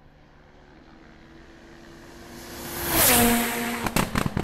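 Race car on a hill-climb road approaching and passing close by about three seconds in, its engine note dropping in pitch as it goes past, followed by a rapid string of sharp exhaust pops and bangs.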